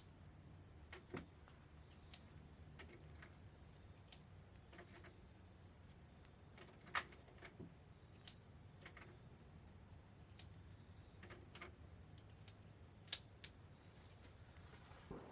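Faint, scattered small metallic clicks and rattles over near silence, with two sharper clicks about seven and thirteen seconds in: a stainless .357 revolver and its cartridges being handled between strings of fire. There are no gunshots.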